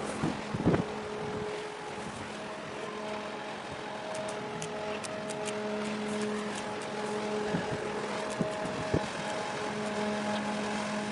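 Steady low hum from the machinery of a large car carrier as it passes close by. The hum holds a few even overtones over a noisy rush, with wind gusting on the microphone in the first second.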